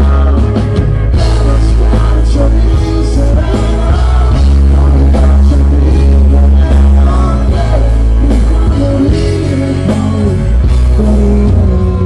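Live amplified band music: a male vocalist sings a melody over keyboards and a heavy, shifting bass line, played loud through the PA.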